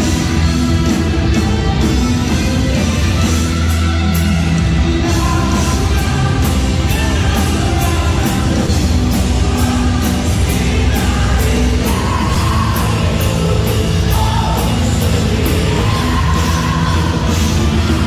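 Hard rock band playing live and loud: drum kit with steady cymbal strokes, bass and electric guitar, with a voice singing over it, more prominent in the second half.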